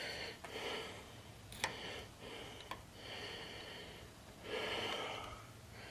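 A man breathing heavily, about five audible breaths in and out, with a couple of faint sharp clicks in between.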